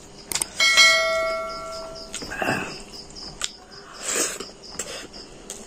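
A single bell-like metallic ring about half a second in, fading away over about a second and a half, over a steady background of chirping crickets.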